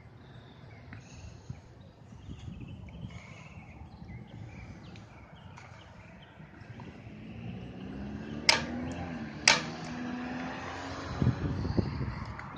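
Road traffic: a motor vehicle's engine builds and drives past. Two sharp clicks about a second apart stand out as the loudest sounds, and a few dull knocks follow near the end.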